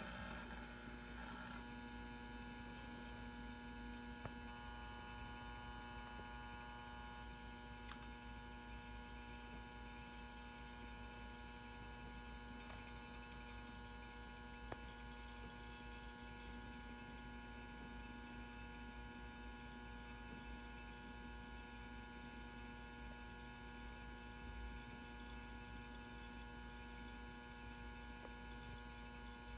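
Steady electrical hum of the M59/E magnetic ballast running a 400-watt probe-start metal halide bulb as the lamp warms up after striking. It is a faint, even chord of several tones, with a couple of faint ticks.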